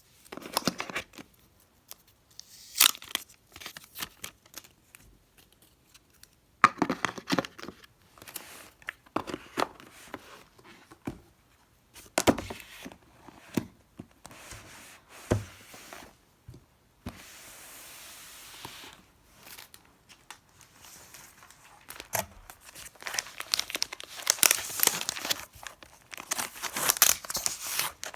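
Packaging of an iPad box being opened: paper and plastic wrapping tearing and crinkling in irregular bursts, with one steadier stretch of tearing a little past the middle.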